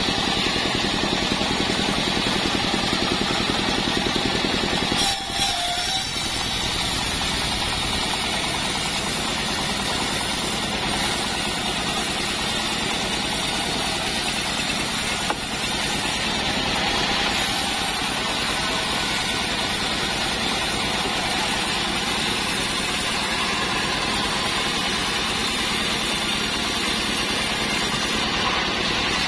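Engine of a homemade portable bandsaw mill running steadily while its band blade saws lengthwise through an acacia log, wood the operators find too hard and heavy to saw easily.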